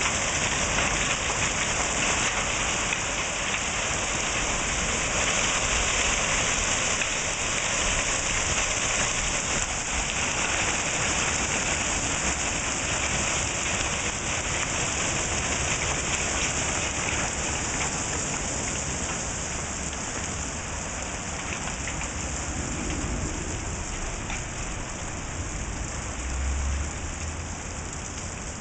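Heavy rain from a hailstorm falling steadily, easing slightly over the last several seconds. A brief low rumble about 26 seconds in.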